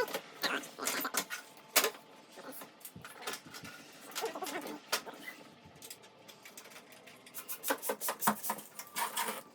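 Irregular sharp plastic clicks and rattles as cables are handled and zip-tied during cable management in a PC build, with a few short stretches of rasping.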